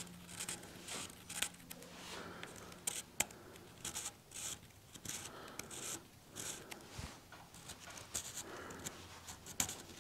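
Sharp pencil scratching in many short, irregular strokes on a sheet of Turcite B, the PTFE-based slideway material, as it traces around the grooves of a clamped metal strip.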